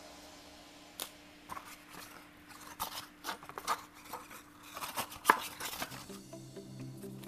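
Cardboard phone box being handled: scattered taps, scrapes and knocks as its inner tray and lid pieces are lifted and set back in, the sharpest knock about five seconds in. Background music comes in near the end.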